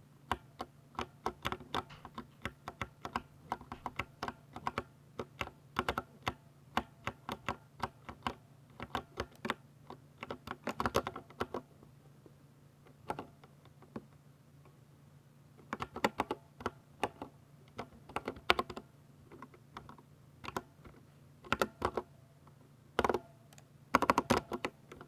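Typing on a Ducky 60% mechanical keyboard with silver switches: runs of rapid keystrokes broken by short pauses, over a faint steady hum.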